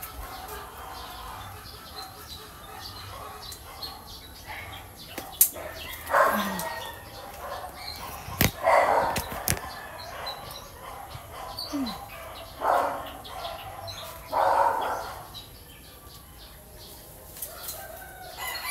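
Backyard chickens clucking and crowing, mixed with rustling leaves and a couple of sharp clicks as calamansi branches are snipped with scissors.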